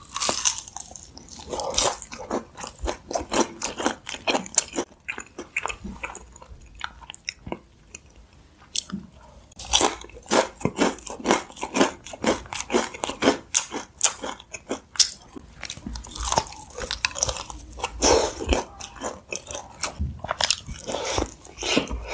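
Close-miked biting and chewing of sauce-coated fried chicken, with a run of irregular bites and chews that grows busier and louder about halfway through.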